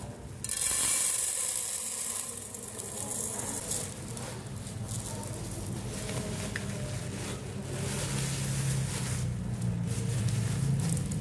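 Uncooked rice grains pouring out of a plastic bag into a metal pot, a loud hiss for the first three seconds or so, then the plastic bag crackling and rustling as it is shaken empty.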